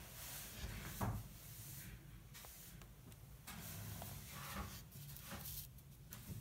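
Faint handling noises: soft rubbing and small knocks, with one sharper knock about a second in, over a low steady hum.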